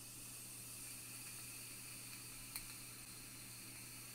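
Youde Goblin Mini rebuildable tank atomiser hissing steadily through a long draw, its coil firing at 37.5 watts on a build reading about 0.25 ohm. A small click comes about two and a half seconds in.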